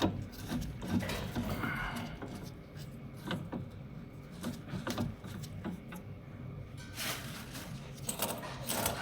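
Irregular light mechanical clicks and knocks over a steady low hum, with a busier patch of rattling near the end.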